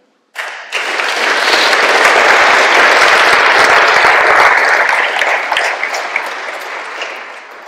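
Audience applauding. It swells within the first second, holds steady, then dies away near the end.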